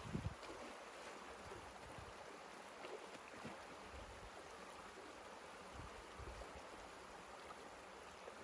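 Water rushing and splashing steadily through a breach in a beaver dam, with a few brief low rumbles of wind on the microphone.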